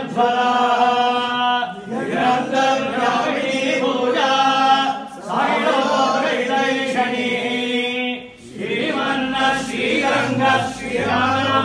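Several men chanting together in unison, held phrases of a second or two broken by short pauses.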